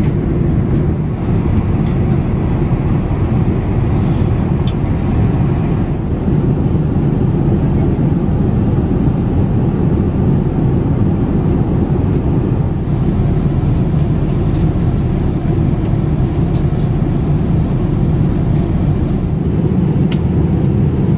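Steady low roar of a Boeing 787's passenger cabin in flight, the rush of air and engines heard from a seat, with a few faint ticks.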